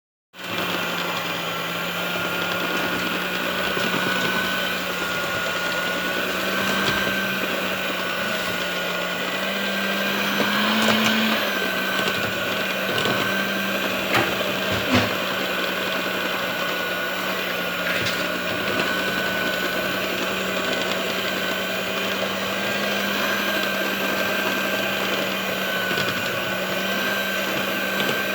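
A small electric motor running steadily with a low hum and a higher whine that waver slightly in pitch, with a few light knocks.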